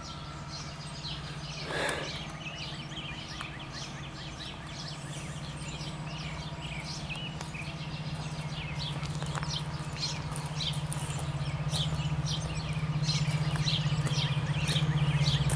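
Birds chirping over a steady low diesel drone that grows gradually louder: a diesel freight locomotive approaching on the line.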